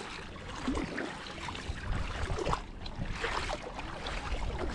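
Shallow seawater sloshing and splashing as a hand and wading legs move through it, with wind rumbling on the microphone.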